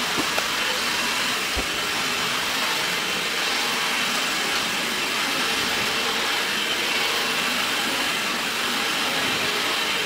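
Roborock S5 robot vacuum running while it cleans: the steady whir of its suction fan and brushes, with a faint high whine.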